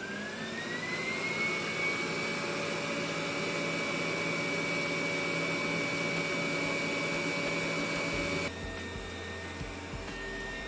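360 S5 robot vacuum's suction fan spinning up with a rising whine that levels off about a second and a half in, then running steadily. About eight seconds in the sound changes abruptly to a quieter, lower running hum.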